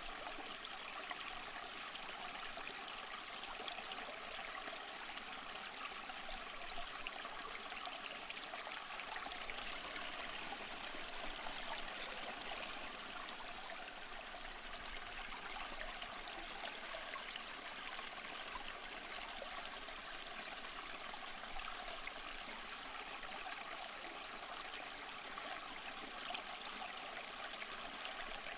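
A small stream running steadily over stones, a continuous hissing babble of water with fine trickling.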